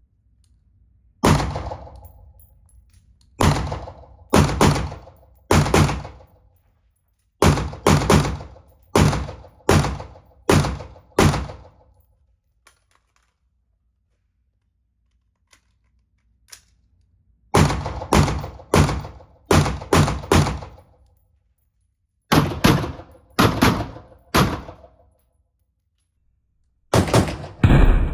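Rifle-calibre gunshots from a 5.56 NATO compact AR pistol with a very short 4.75-inch barrel, fired semi-automatically in quick strings of about two shots a second. About halfway through there is a pause of several seconds with only a few faint clicks, and a fast string comes near the end.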